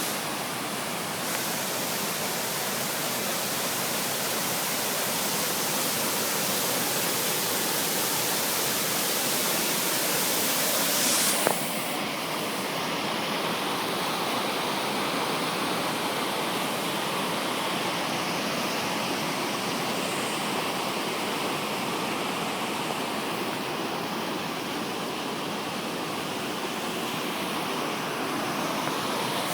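Waterfall rushing steadily, an even hiss of falling water, with one brief click partway through.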